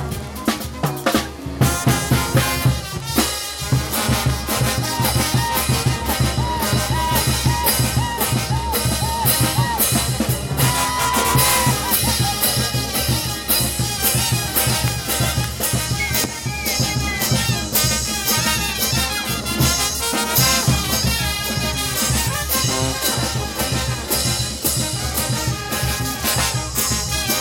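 Brass band with trumpets, trombones, tuba and drum kit playing lively dance music. It opens with about two seconds of loud drum hits before the full band comes in.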